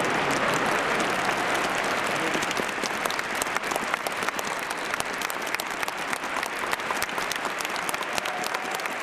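Crowd applauding: a dense wash of many hands clapping that thins a little toward the end into more separate claps.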